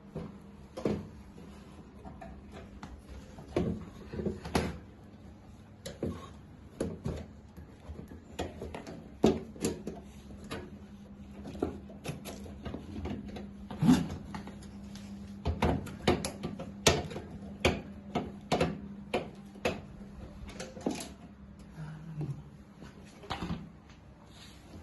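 Irregular clicks and knocks of metal parts being handled inside a PC case while the power supply is fitted and screwed in, over a low steady hum.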